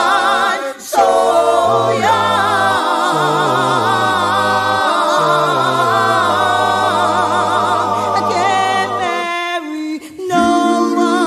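Background music: a vocal group singing in harmony, the voices wavering with vibrato over low bass notes. It breaks off briefly about a second in and again near the end.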